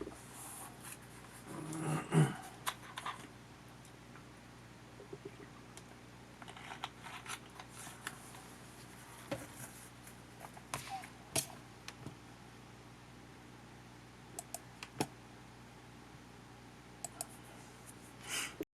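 Hands working on a small camcorder's plastic parts and tools: scattered light clicks and taps, with a louder rustling bump about two seconds in.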